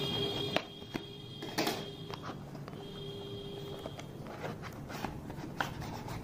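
Cardboard retail packaging being handled: a sleeve slid off an inner box, with scattered light clicks, taps and scrapes.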